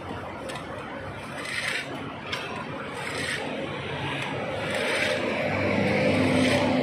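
Diesel backhoe loader running as its bucket digs a roadside trench, with repeated scraping of metal through soil. The engine grows louder and steadier over the last couple of seconds as it works under load.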